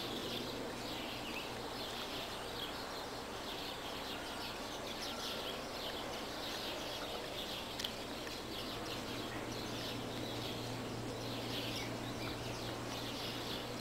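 Outdoor ambience: small birds chirping in many quick, short calls, over a steady low hum.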